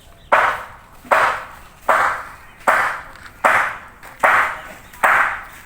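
Seven sharp, evenly spaced blows of a hand tool during demolition, a little under a second apart, each ringing briefly.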